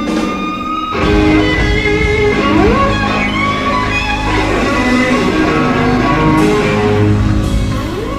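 Electric blues-rock guitar played with the band behind it, single-note lines with a couple of rising bent or slid notes.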